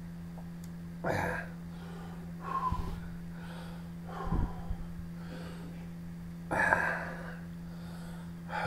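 A man's sharp, heavy breaths through the open mouth, about five of them a second or two apart, panting against the burn of an extremely hot sauce.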